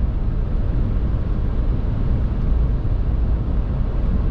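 Steady, deep rumble of a moving vehicle heard from inside the cab: engine and road noise running evenly with no change.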